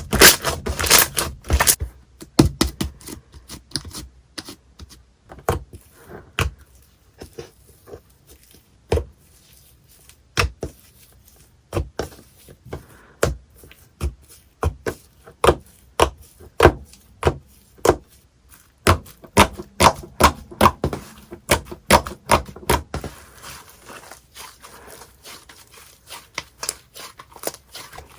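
Slime being pressed, poked and squished, giving irregular sharp clicking pops, with a quicker run of pops toward the end and softer ones after it.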